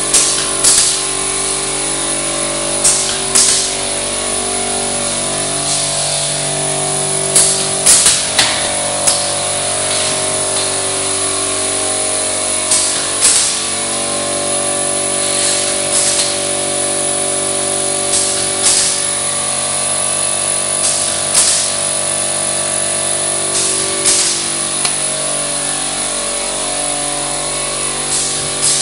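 Roll-forming machine for drywall steel profiles running with a steady hum, broken by sharp clacks at irregular intervals, a few every several seconds.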